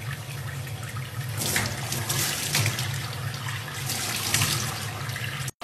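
Tap water running steadily into a stainless steel sink, the stream splashing over a young chimpanzee's hands. It cuts off suddenly near the end.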